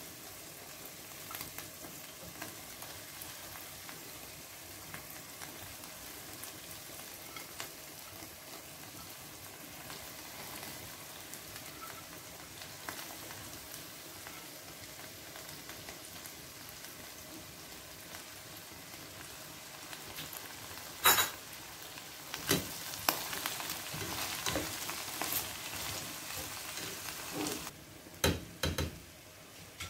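Shredded cabbage and carrot frying in oil in a pan, a steady low sizzle. About two-thirds of the way in there is a sharp clack, then a run of knocks and clatter against the pan near the end.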